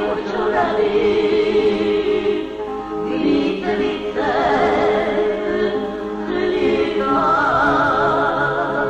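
Music: a song with several sung voices holding long notes with wide vibrato over a steady accompaniment, the phrases changing every couple of seconds.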